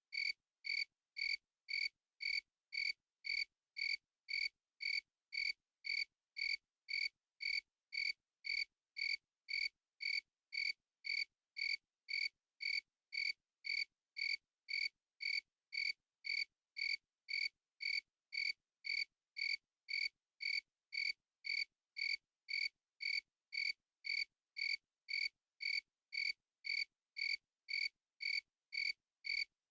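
A cricket chirping in an even, unbroken rhythm of just under two short, high chirps a second.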